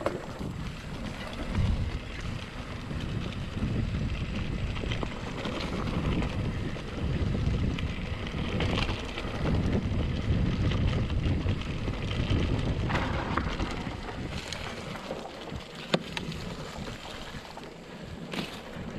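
Wind buffeting the microphone as a mountain bike rolls along a trail, a steady low rumble with a couple of sharp clicks or knocks near the end.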